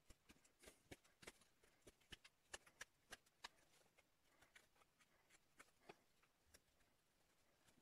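Carving knife shaving short cuts across a birch spoon blank while cutting facets: a run of faint, crisp wood-shaving snicks at an uneven pace, closer together in the first half and fewer later.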